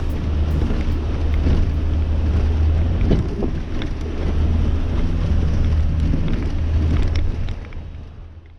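Subaru Forester driving on a dirt track: a steady low drone of engine and tyres, with wind buffeting the microphone and scattered sharp ticks. The sound fades out near the end.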